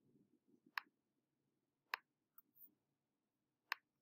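Three short, sharp computer mouse clicks, unevenly spaced, against near silence.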